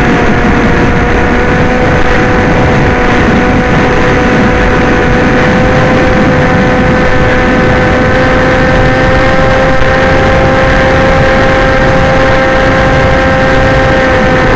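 Electric motor and propeller of a radio-controlled FPV aircraft heard from its onboard camera: a loud, steady whine held at an even pitch, over heavy wind rush on the microphone.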